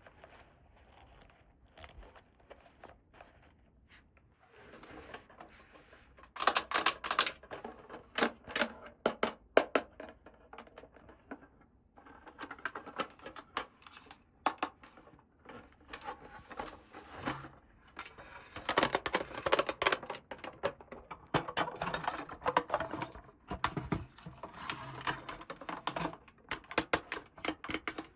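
Hands handling small plastic toy parts and packaging: bursts of quick clicks, taps and rustling, quiet for the first few seconds and then busier.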